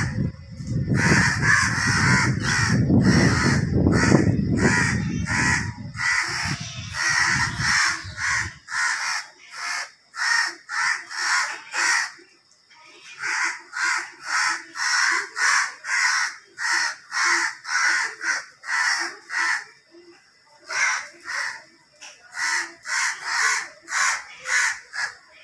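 Crows cawing over and over, about two short harsh calls a second, with a brief pause near the middle. A low rumble runs under the calls for the first eight seconds or so.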